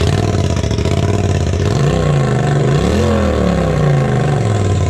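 Polaris RZR 1000 Turbo's turbocharged twin-cylinder engine running loud through a straight pipe, its muffler and catalytic converter removed and the pipe cut off open. It is revved up about two seconds in, peaking around three seconds, then drops back to idle.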